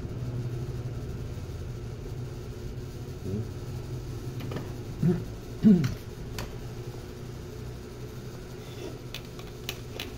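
Steady low hum of a fan motor at an electronics repair bench. A few short low sounds come about five seconds in, the second one the loudest, and a few light clicks follow near the end.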